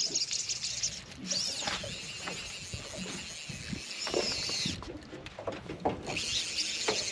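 Fly reel's drag running as a hooked trout pulls line off it, a fast high buzz that stops for about a second after the middle and then starts again, with light knocks from handling the rod.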